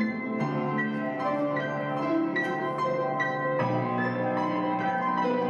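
Many upright pianos played together as an ensemble: dense, overlapping struck notes and chords ringing on, with new notes entering every fraction of a second.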